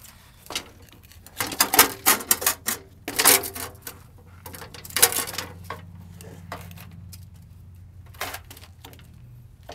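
Bent steel bumper of a 1987 GMC Jimmy being shifted by hand on wood blocks over concrete: a quick run of metallic clanks and rattles in the first few seconds, a few more knocks around five seconds in and one near the end.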